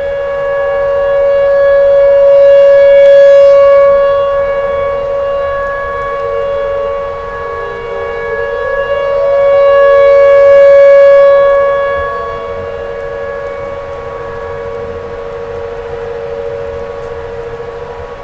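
Outdoor tornado warning siren sounding a steady chord of several tones, with short pitch glides. It swells loud twice, about eight seconds apart, then holds quieter.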